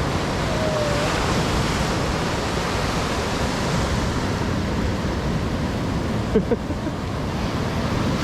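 Sea surf washing onto a beach as a steady rushing noise, with wind on the microphone; two short louder knocks about six and a half seconds in.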